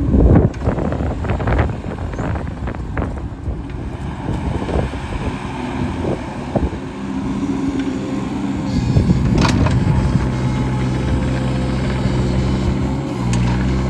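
A 2008 John Deere 17D mini excavator's Yanmar diesel running steadily while the machine works, with a run of metal knocks and clanks in the first half and a short, louder noisy burst about nine and a half seconds in. Near the end the engine note briefly dips and then settles at a slightly different pitch.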